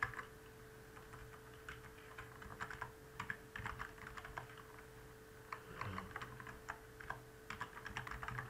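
Computer keyboard being typed on: irregular runs of keystrokes with a short pause around the middle, over a faint steady hum.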